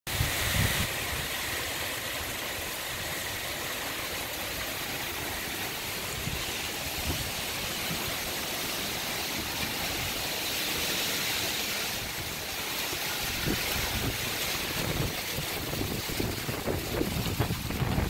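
Severe wind storm with heavy rain: a steady rushing hiss of wind-driven rain, with gusts buffeting the microphone in uneven low rumbles that grow stronger and more frequent over the last few seconds.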